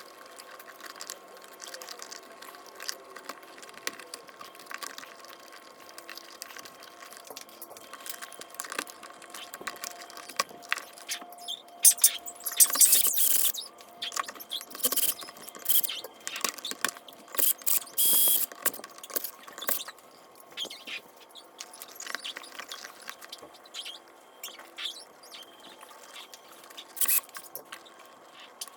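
Clicks, scrapes and rustles of stiff electrical wires and a bulky smart light switch being pushed and worked into a wall box, with louder scraping about twelve seconds in and again around eighteen seconds.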